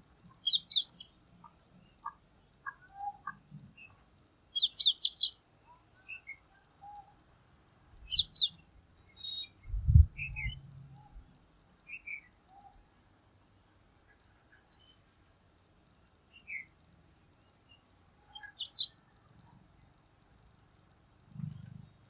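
Bengal bush lark calling: short bursts of rapid, high, trilling notes every few seconds, with scattered softer chirps between them. A faint run of regular high pips, about two a second, sounds through the middle. A dull low thump about ten seconds in is the loudest sound.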